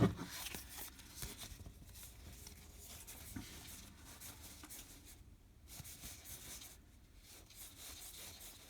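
Faint rustling and light scraping of baseball cards being handled and slid through the hands, with a few small ticks and two brief near-silent pauses.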